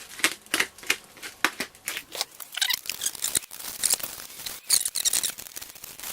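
Packing material being handled and pulled away as a parcel is unpacked by hand, rustling and crinkling in a run of quick, irregular crackles.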